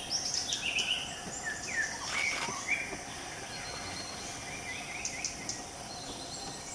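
Forest birds calling over a steady, high insect drone: a flurry of short chirps and falling whistles in the first few seconds, then fewer calls.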